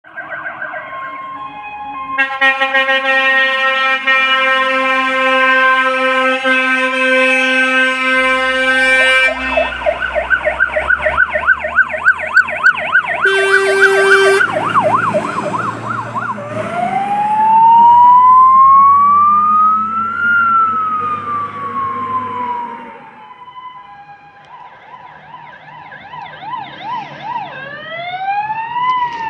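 Fire engines on an emergency run. A loud, steady chord of multi-tone horns sounds for about seven seconds, then an electronic siren goes to a fast yelp with a short horn blast, then a slow rising and falling wail as the truck passes with its engine rumbling. Near the end a second siren fades in from a distance.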